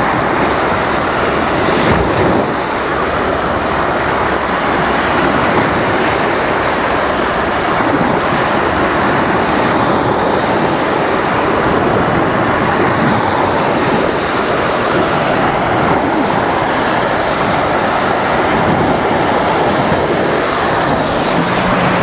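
Small sea waves breaking right at the waterline and washing up over sand and shell grit: a steady rush of surf.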